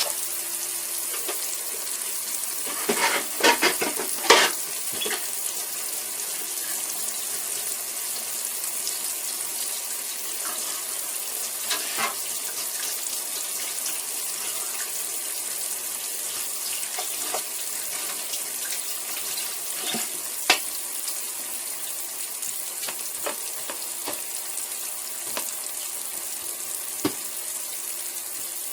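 T-bone steak searing in a hot pan, a steady sizzle with a few sharp pops and knocks, a cluster of them about three to four seconds in.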